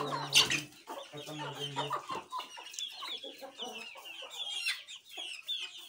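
A flock of aseel chickens clucking and squawking, with one loud squawk about half a second in and many short, high calls after that.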